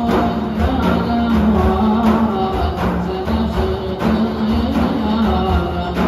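Ensemble of large hand-beaten frame drums (def) playing a steady rhythm together. A melody of long held notes runs above the drumming.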